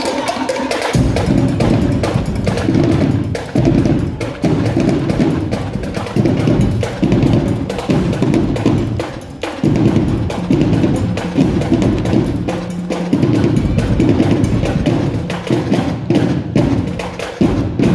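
Marching drumline playing a loud, driving cadence: heavy bass-drum hits under rapid, sharp stick strokes in a steady rhythm.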